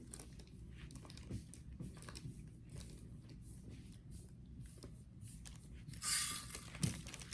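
Faint room hum with scattered small handling clicks, and a brief crinkling rustle about six seconds in.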